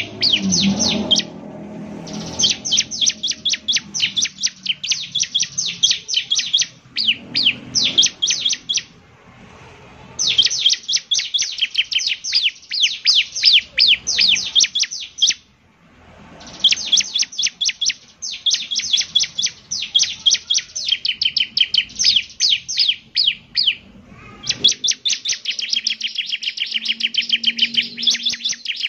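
Bar-winged prinia (ciblek) singing: long runs of rapid, high, sharply falling notes, broken by several short pauses.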